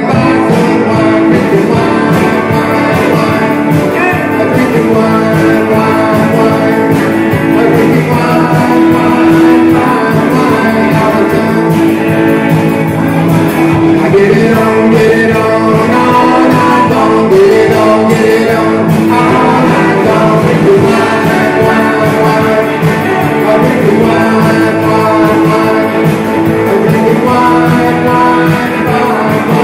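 Rock and roll band playing live, with guitar and a singer.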